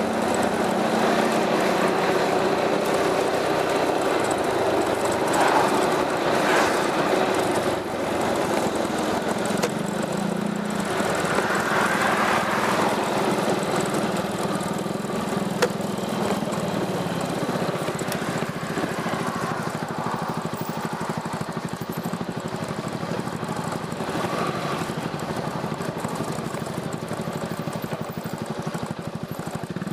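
Piaggio MP3 400 scooter's single-cylinder engine running through an Akrapovič aftermarket exhaust, a steady exhaust note with a brief shift in pitch about ten seconds in, easing slightly in loudness toward the end.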